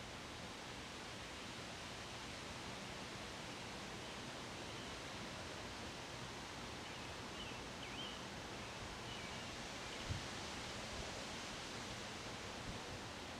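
Steady wind outdoors, a continuous rustling hiss. A few faint high chirps come near the middle, and there is a brief low thump about ten seconds in.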